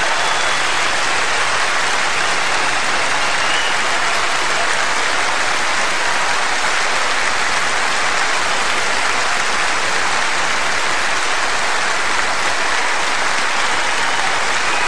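A steady, unbroken rushing noise at an even level.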